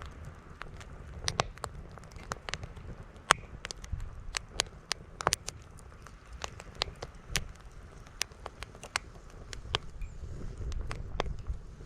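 Wood campfire crackling, with frequent irregular sharp pops and snaps. Strong wind buffets the microphone underneath as a low rumble, swelling briefly near the end.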